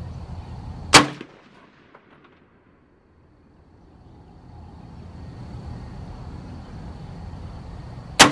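Two single gunshots about seven seconds apart, one about a second in and one near the end: slow, aimed shots at a target.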